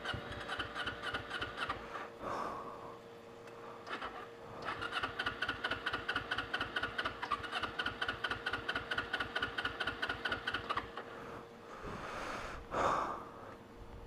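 Kawasaki Ninja 250's electric starter cranking its parallel-twin engine with a rhythmic churn, the engine not catching. There is a short crank first, then after a pause a longer one of about six seconds. It is typical of cranking a bike whose fuel system has run dry, with fuel not yet through to the engine.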